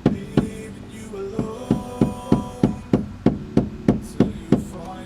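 Rapid, evenly spaced hammer blows, about three a second, with a short pause about half a second in and stopping near the end. They are being struck against a seized Jeep Wrangler JK door mirror mount to knock it loose, and it does not budge.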